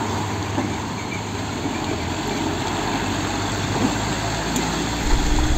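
Hino concrete mixer truck's diesel engine running steadily, with a louder low rumble near the end.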